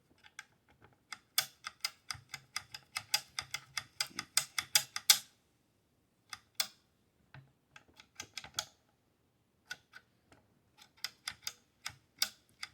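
Small, sharp metal clicks from rifle parts being worked by hand on an AR-15 lower receiver. There is a quick run of about four or five clicks a second for a few seconds, then scattered single clicks.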